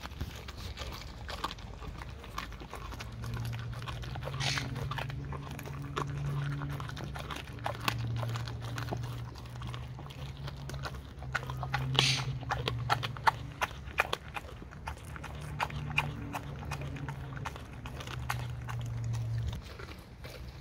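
Dog chewing and crunching a raw salmon head: irregular wet bites and bone crunches throughout. A low hum comes and goes in stretches underneath.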